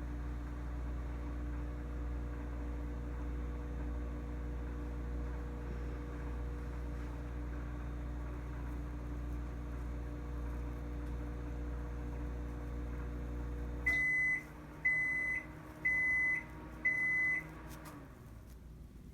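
Microwave oven running with a steady hum, then cutting off about 14 seconds in and beeping four times, evenly spaced about a second apart, to signal the end of the cooking cycle. Its fan hum winds down after the beeps.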